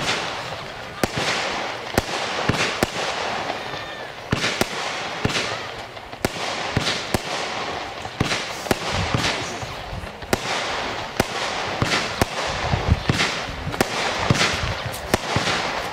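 Panda 'Rauchende Colts' firework battery (cake) firing: sharp shots about one to two a second, one after another, with a hissing haze between them.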